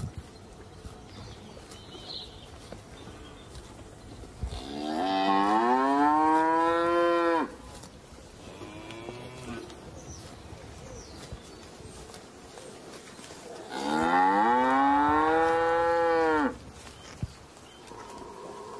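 Cattle mooing: two long, loud moos about eight seconds apart, each rising in pitch and then holding, with a faint shorter moo between them.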